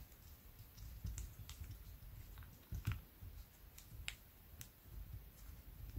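Small, faint clicks and ticks of the parts of a disassembled spinning reel being handled and fiddled with, over a low handling rumble. The clearest clicks come about three and four seconds in.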